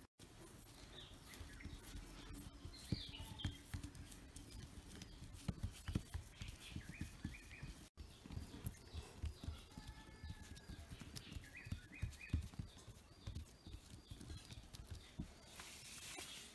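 Faint, irregular soft pats and taps of fingers pressing rice-flour dough flat onto a banana leaf, with birds chirping now and then in the background.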